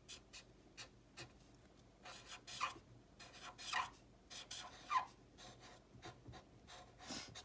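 Black felt-tip pen writing on paper: a run of short strokes as letters are formed, with small taps of the pen between them.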